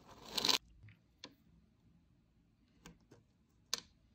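A hand brushing and scraping over crumpled kraft paper in a short rising rustle, then several light, separate clicks as small wooden rods are picked up and set down one at a time.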